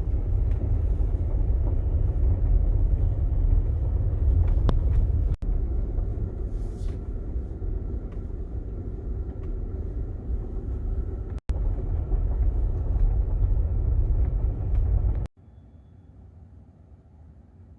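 Car tyres running on a gravel road, heard inside the cabin: a loud, steady low rumble with faint ticks of stones. It cuts out briefly twice, and about fifteen seconds in drops suddenly to a faint hum.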